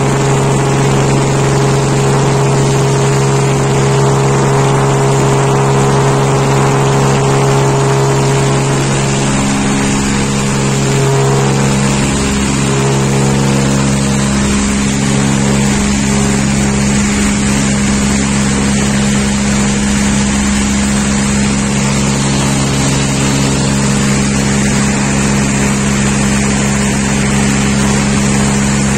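Piston engine and propeller of a single-engine high-wing light aircraft at takeoff power, heard from inside the cabin: a loud, steady drone with a hum, its tone changing about ten seconds in.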